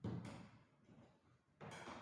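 Two sudden thuds, one at the very start and one near the end, each trailing off.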